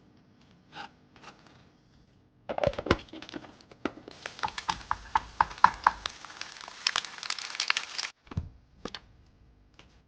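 Packaging crinkling and tearing as it is handled, dense and crackly for about five seconds, with a few scattered clicks before and a dull knock near the end.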